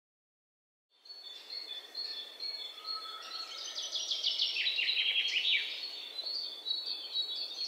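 Birds chirping and twittering over a light steady background hiss: many quick high calls and short falling trills that start about a second in and grow busier.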